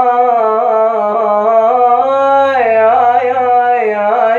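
A man singing one long held note without words, drawn out on a vowel, its pitch wavering in melismatic ornaments about halfway through and again near the end.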